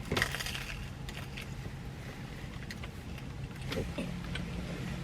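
Quiet eating sounds: soft chewing and a few faint clicks over a low, steady hum.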